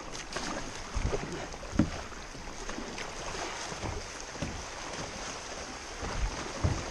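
Rushing, rippling water of a shallow stream riffle running past a sit-on-top kayak's hull, with a few dull low thumps mixed in.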